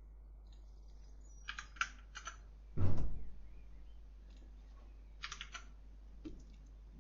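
Computer keyboard keys and mouse buttons clicking in short clusters, with one louder, heavier key or desk knock about three seconds in.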